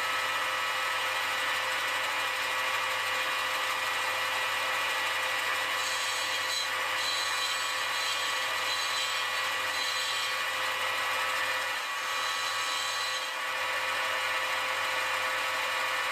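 Bench grinder running with a steady motor hum. From about six seconds in to about thirteen, a small square cutting tool bit is ground against the wheel in several short passes, each adding a high grinding hiss.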